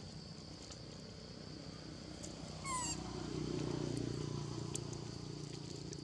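Steady high-pitched insect drone, with one short high chirp-like call a little before halfway, then a low rumble for about two seconds.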